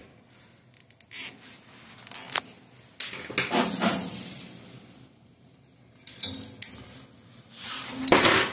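Hands handling small parts and tools against the dehydrator's sheet-metal panel: a few sharp clicks, then two bursts of rubbing and clatter, the louder one near the end.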